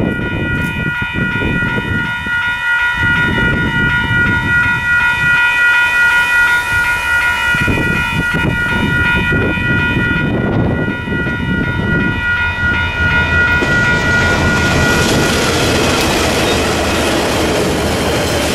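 Level-crossing warning bells ringing steadily over the rising rumble of an approaching freight train's DXC-class diesel locomotives. About three-quarters of the way through, the train speeds past and the rush and clatter of its wagons' wheels takes over.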